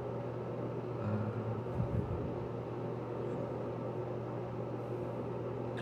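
Steady, even background hum and hiss of room noise, with a short low voice-like sound about a second in.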